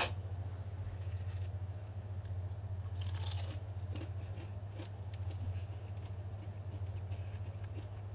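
Crispy fried chicken crust being bitten and chewed: a loud crackly crunch about three seconds in, then smaller crunches and clicks. A steady low hum runs underneath.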